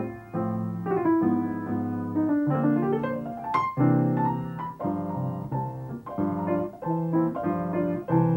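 Solo acoustic piano playing full chords, with a quick upward run of notes about three seconds in.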